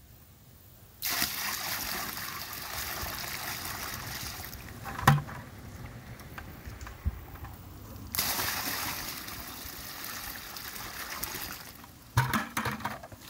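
Water poured from a bucket splashing into a plastic septic distribution box, in two pours: the first starts about a second in, the second about eight seconds in, and a trickle runs between them as the box drains into its outlet pipes in a flow test. A sharp knock comes about five seconds in, and a few more knocks come near the end.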